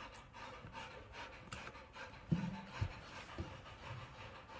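Rottweilers panting, a faint rhythmic breathy hiss, with a couple of brief low sounds about halfway through.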